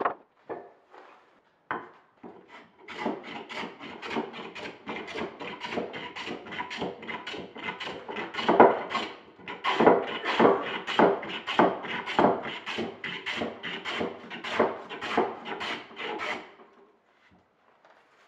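A few hammer taps on the wooden pegs of the benchtop, then a long run of quick, even hand-tool strokes cutting a block of hardwood braced against the pegs, about three strokes a second. The strokes stop a couple of seconds before the end.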